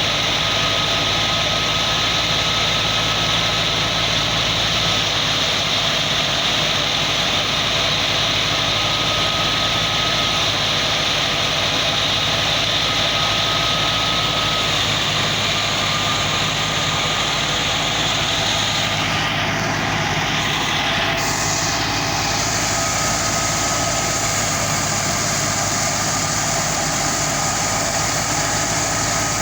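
Wheat thresher running steadily: a constant engine hum under a dense hiss from the threshing machine, the hiss thinning briefly about two-thirds of the way through.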